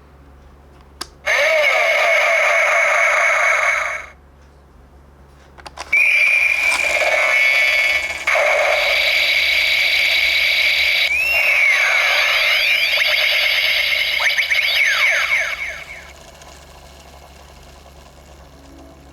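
Bandai Kamen Rider toy transformation belt playing electronic sound effects through its small speaker: a click about a second in, then a warbling effect of about three seconds, and after a short pause a longer effect of about ten seconds with sweeping, gliding tones.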